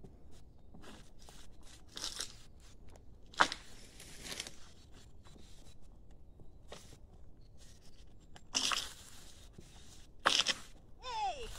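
Bark being stripped by hand from a felled small-leaved lime trunk: several separate tearing, ripping pulls, one with a sharp crack, and a short falling squeal near the end.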